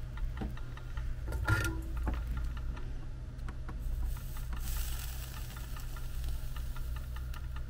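Soldering iron pressed to a fluxed, solder-wrapped wire joint, the flux sizzling in a brief hiss about four seconds in. Earlier, a single clink as the wires and iron are handled, over a steady low electrical hum and faint regular ticking.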